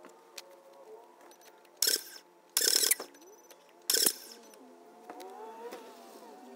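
Three short, loud bursts of harsh mechanical noise, about a second apart, each lasting well under half a second.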